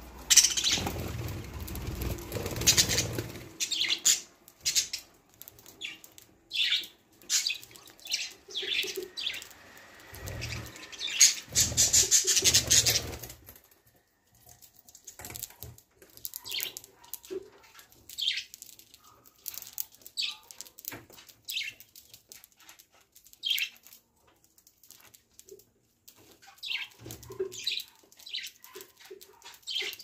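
Caged budgerigars chirping in short, sharp calls throughout. Two louder bursts of wing flapping come at the start and again about ten seconds in, each lasting a few seconds.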